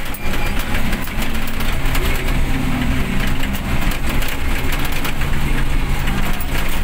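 A vehicle engine running steadily, heard from inside the cabin while driving on a wet road in heavy rain, with a constant hiss of rain and wet tyres over the engine hum.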